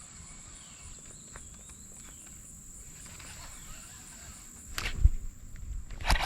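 Pondside outdoor ambience: a steady high-pitched insect drone with faint bird chirps and low wind rumble on the microphone. A sharp knock about five seconds in and another near the end, from handling gear.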